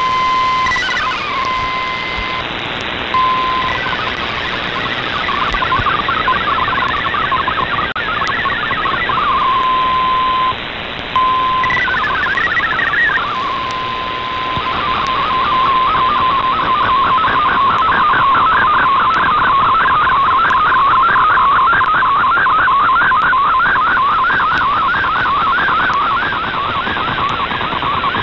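Shortwave radio reception of the WRMI RadioGram broadcast on 7730 kHz: steady receiver hiss with a single steady data tone, broken twice by short bursts of warbling tones. From about halfway in, a continuous warbling MFSK digital data signal carries the program's text and images.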